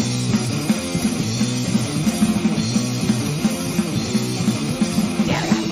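Loud rock music with held chords that change about once a second.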